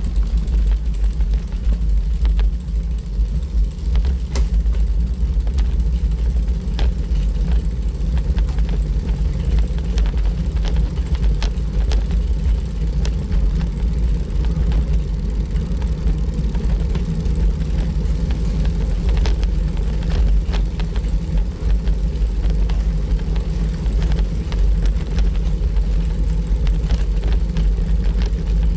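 Heavy wind rumble on the microphone of a camera riding on a moving bicycle, with frequent small clicks and rattles as it rolls over stone paving.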